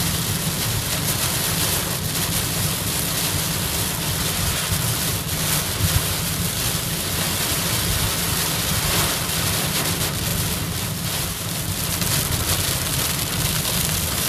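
Heavy rain drumming steadily on a moving car's windshield and roof, over a low rumble of tyres on the flooded road. About five and six seconds in come two brief knocks.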